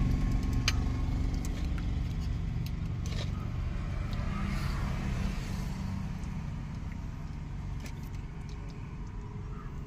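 Low vehicle rumble slowly fading away, with a few light clinks of a steel ladle against the pot and plate.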